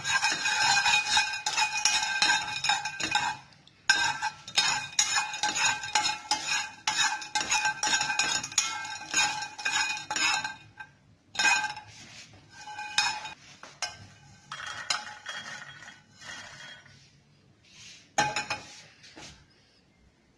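Raw peanuts being stirred with a spatula in a dry stainless steel pan: they rattle and scrape, and the pan rings. There is a brief pause about four seconds in, and the knocks and scrapes grow sparser and quieter in the second half.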